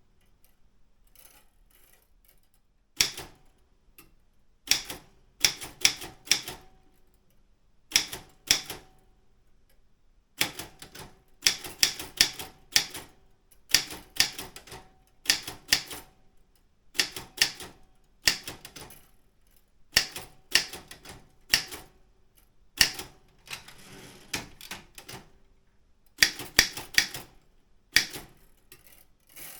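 Daro Optima M16 typewriter being typed on: keys striking in quick bursts of a few strokes each, with short pauses between. After about three seconds of quiet at the start, the typing runs on unevenly.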